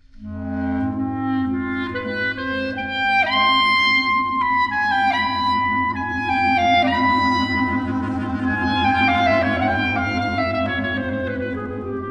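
Clarinet quartet (three clarinets and a bass clarinet) starting to play: low notes held steadily underneath a melody that moves above them in held notes and quicker runs.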